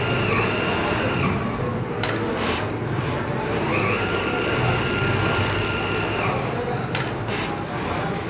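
Jack 1200x800 computerized pattern sewing machine running through a template, with a steady mechanical hum and a high whine that winds up, holds and winds down as it sews each section: it dies away about a second in and returns from about three and a half to six and a half seconds. Two pairs of sharp clicks come near two and seven seconds in.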